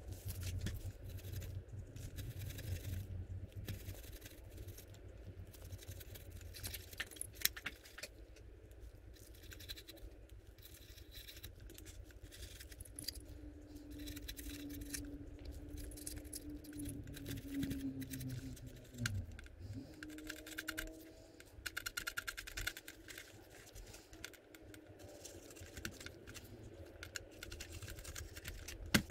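Faint, irregular scratching, tapping and clicking of a stiff paintbrush scrubbing dry weathering pigment into a plastic 1/35 scale model tank as the kit is handled over tissue paper.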